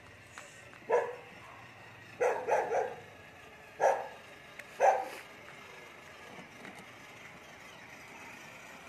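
A dog barking: six short barks within about four seconds, three of them in quick succession in the middle.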